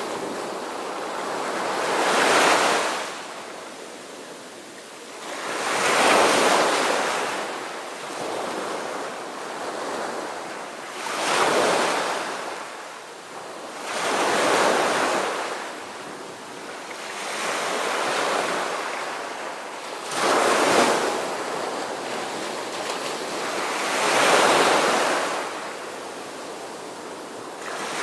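Waves washing in, a rushing surge that rises and fades every three to four seconds.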